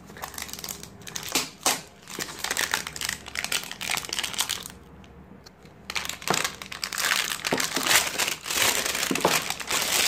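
Clear plastic shrink-wrap being peeled off a cardboard phone box and crumpled in the hand: dense crackling and crinkling in two stretches, with a short lull about five seconds in.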